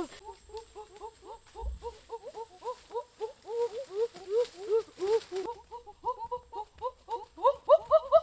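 A chorus of short, rising-then-falling animal calls, several a second and overlapping, getting louder near the end.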